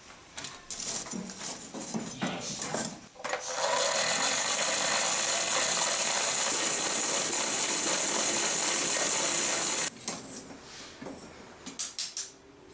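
Air blower forcing air into a charcoal forge while a steel knife blade heats for hardening: loud steady rushing with a high whine that runs about six seconds and cuts off suddenly. Before it, scraping and clinking of the blade being moved in the coals; after it, a few sharp knocks.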